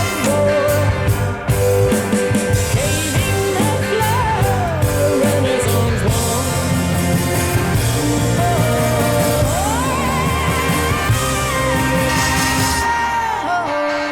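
Rock song with a sung vocal melody over bass, drums and guitar, played back through hi-fi loudspeakers. Near the end the bass and drums drop out, leaving guitar.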